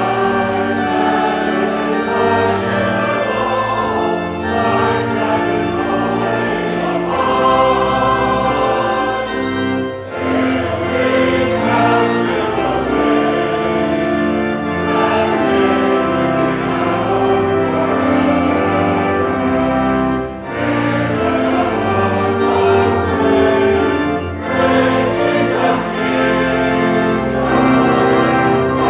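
Congregation singing a processional hymn in unison with church organ accompaniment, with brief breaks between verses or phrases about ten and twenty seconds in.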